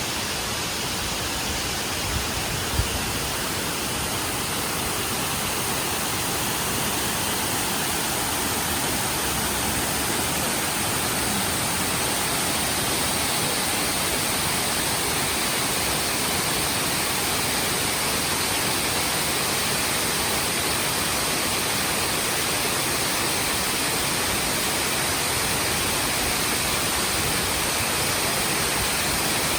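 Oshinkoshin Falls, a waterfall, giving a steady rush of falling water. Two brief low thumps come about two and three seconds in.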